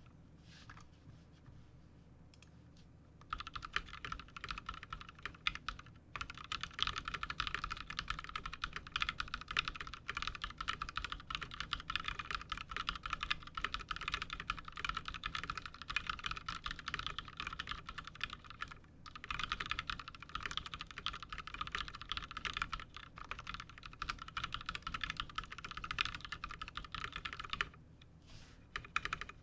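Continuous fast typing on a custom 60% mechanical keyboard: lubed Novelkeys Cream linear switches on a brass plate, PBT doubleshot keycaps and lubed GMK stabilizers. The typing starts about three seconds in, breaks briefly about two-thirds of the way through, and stops shortly before the end.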